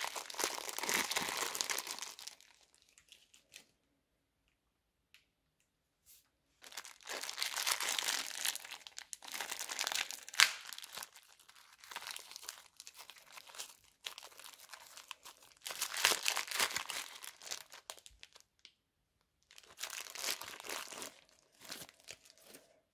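Thin plastic piping bags crinkling as they are pulled and peeled away from kinetic sand. The crackle comes in several bursts of a few seconds, with short quiet gaps between.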